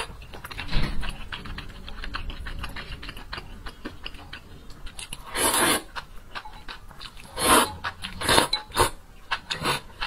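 Close-miked eating of thick noodles: wet chewing and mouth clicks, then loud slurps of noodles in spicy soup, a long one about five seconds in and several shorter ones after.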